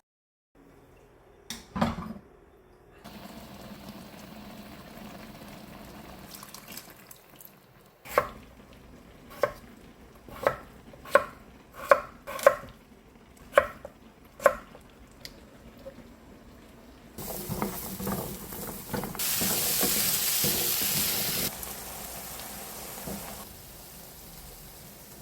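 Home kitchen work sounds. A run of about eight sharp knocks of kitchenware, roughly one a second, is followed by a loud steady hiss lasting a few seconds.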